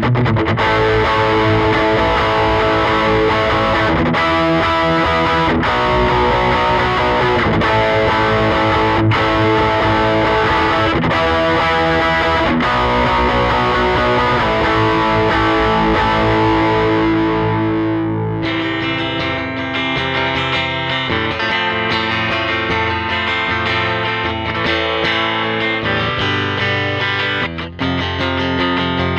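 Electric guitar played through a 1988 Peavey Bravo 112 all-tube combo amp. About 18 seconds in, the sound changes abruptly and loses much of its top end.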